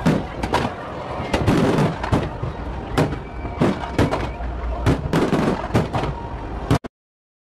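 Fireworks display: aerial shells and ground effects going off in a rapid, irregular string of bangs and crackles over a continuous rumble. The sound cuts out abruptly for the last half-second or so.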